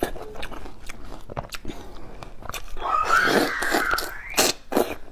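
Crisp, juicy bites and chewing of ripe star fruit (carambola), with many sharp crunches of the watery flesh. A short high-pitched whine rises about three seconds in.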